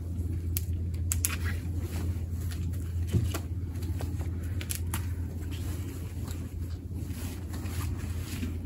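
Gloved fingers raking through the fine roots of a bare-rooted cherry tree: scattered crackles and small snaps of roots and soil, the sharpest about a second in and again about three seconds in, over a steady low rumble.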